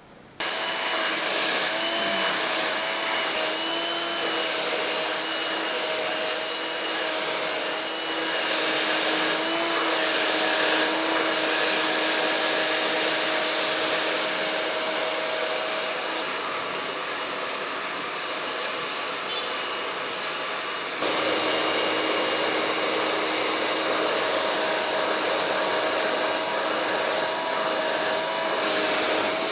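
Hand-held hair dryer switched on about half a second in and running steadily with a whining hum, stepping up louder about two-thirds of the way through.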